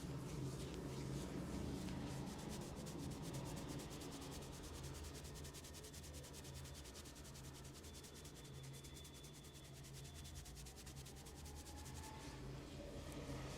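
Hands rubbing briskly during a massage: fast, even friction strokes against skin.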